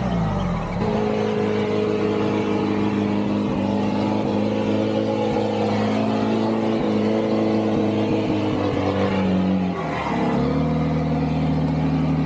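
Off-road 4x4 engine held at steady revs under load. Its pitch falls right at the start, holds level, then dips briefly about ten seconds in before settling again.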